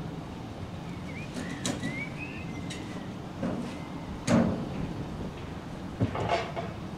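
Low steady rumble of an approaching Irish Rail 201 class diesel locomotive, with a bird chirping about a second in. A few sharp knocks cut through, the loudest just after four seconds in.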